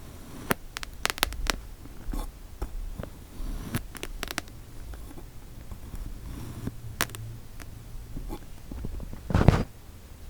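Kinetic sand being cut and crunched: scattered sharp clicks and crackles, with a heavier crunching thud about nine seconds in, the loudest sound.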